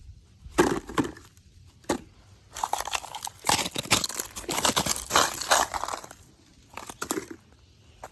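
Snow and ice crunching and cracking: a few sharp cracks, then a stretch of dense crunching that stops and starts again briefly near the end.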